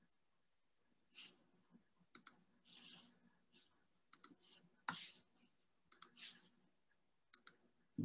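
Near silence, broken by about eight faint, scattered clicks and a few short soft hisses.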